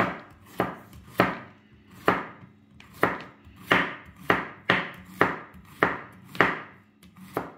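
Chef's knife slicing a zucchini into thin rounds on a wooden cutting board: a steady run of sharp strokes as the blade goes through and hits the board, about two a second.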